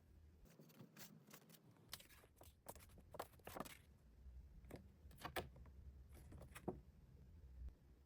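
Faint handling noises from album packaging: scattered rustles and light clicks and taps, a few slightly louder near the middle.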